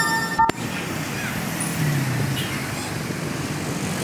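A multi-tone telolet horn holding a chord of several notes, cutting off with a click about half a second in. After it, steady street background noise with faint voices.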